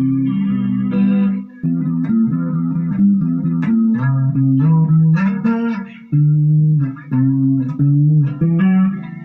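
Electric guitar played through a Marshall MG15GFX 15-watt 1x8 combo amp with its flanger effect switched on: a run of sustained chords and notes, each ringing before the next, with brief gaps between phrases.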